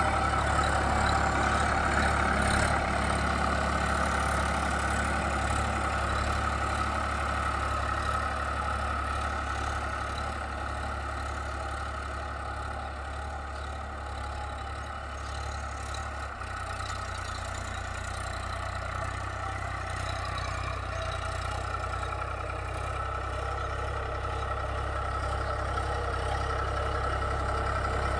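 Sonalika DI 47 tractor's diesel engine running steadily under load as it pulls a nine-tine cultivator through ploughed soil. The sound fades through the middle as the tractor moves off, then grows louder again near the end as it comes back.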